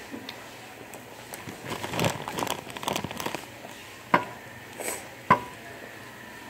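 Plastic crinkling as it is handled, in a dense crackly run lasting a couple of seconds, followed by two sharp clicks about a second apart.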